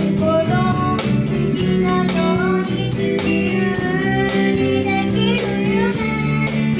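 A live band playing a pop song, with a child singing the lead melody over steady drums and cymbals and guitar chords.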